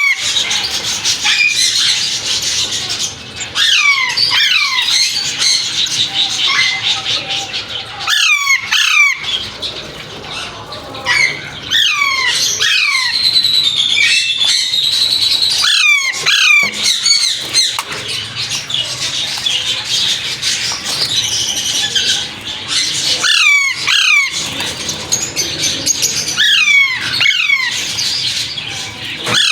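Gouldian finches calling in a cage or aviary: constant busy chirping, broken every few seconds by loud falling whistled calls in twos and threes.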